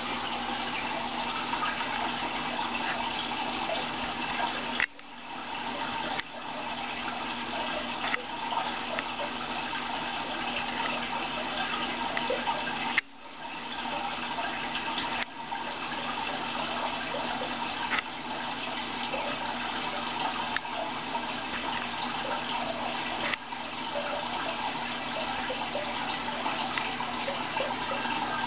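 Aquarium filtration water running steadily, a dense trickling and splashing of water into the tank, with two brief sudden dips in level.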